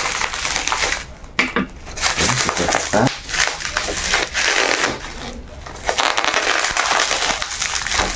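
Bubble wrap crinkling and crackling in irregular bursts as it is handled and pulled open by hand around a parcel.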